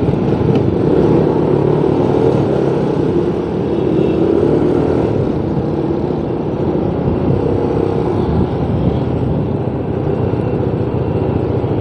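Motorcycle engine running under way in traffic, its pitch rising and falling a little, with wind rushing over the microphone.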